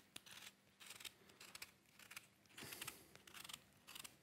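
Faint, repeated scraping strokes of a kitchen knife paring the rind off a lemon.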